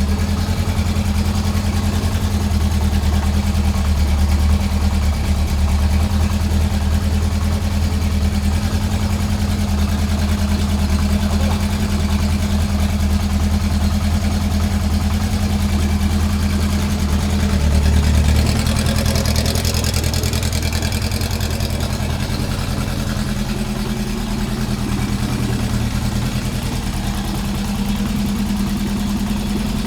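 Honda CB750K4's inline-four engine idling steadily, running again after a full restoration. About 18 seconds in it rises briefly, then settles back to idle with a slightly changed note.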